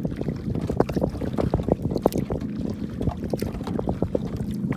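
Lake water lapping and splashing against a kayak's hull as it is paddled along, a busy run of irregular little slaps. Wind rumbles on the microphone underneath.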